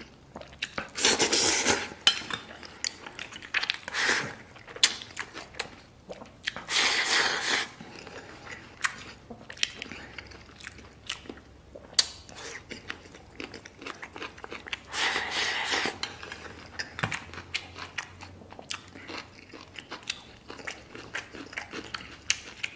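Close-miked chewing and biting of soft red-braised beef, with wet mouth clicks throughout and three louder stretches of about a second each: one about a second in, one around seven seconds, and one around fifteen seconds.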